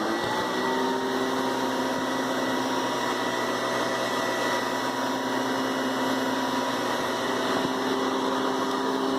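Hoover Decade 800 upright vacuum cleaner (6.5-amp motor, six-blade fan) switched on: the motor winds up to speed within the first half second, then runs with a steady whine.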